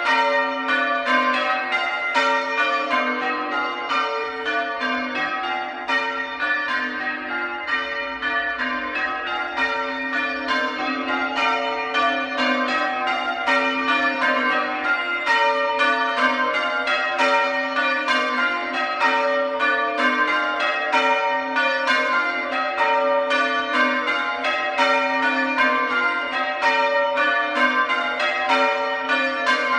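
Church tower bells rung in changes: a steady, unbroken run of strokes, several a second, each note ringing on into the next.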